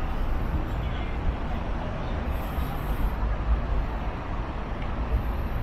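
Road traffic on a wide multi-lane city street: a steady rumble of passing cars and trucks, with brief swells of tyre hiss as vehicles go by.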